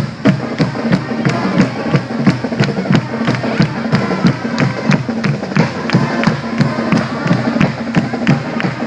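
Marching band playing: brass over a steady, driving drum beat.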